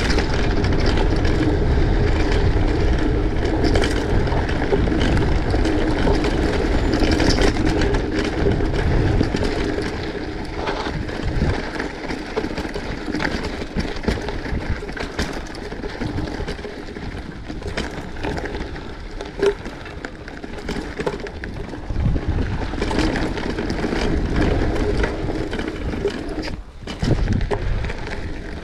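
Steady rumble of a vehicle's wheels rolling over a rough track, with many scattered knocks and rattles; it eases a little about ten seconds in.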